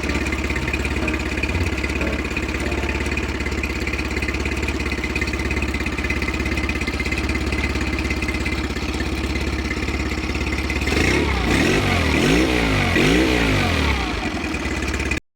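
Tohatsu four-stroke 9.8 hp outboard motor running steadily, then revved up and down two or three times about eleven seconds in, before the sound cuts off suddenly.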